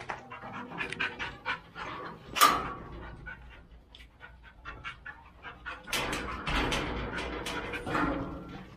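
A pit bull panting hard in the heat. A single sharp knock about two and a half seconds in, and a louder stretch of noise from about six to eight seconds in.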